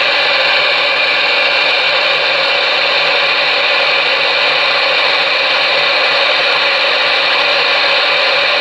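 Galaxy DX-98VHP ten-meter radio's receiver hissing with steady static through its speaker, heard on an open channel after an unanswered call for a radio check.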